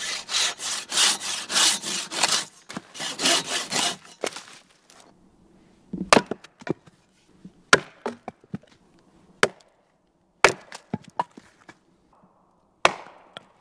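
Handsaw cutting through a log in quick, even back-and-forth strokes for about four seconds. After a short pause comes a hatchet splitting a log section on a chopping block: a series of sharp, separate blows into the wood.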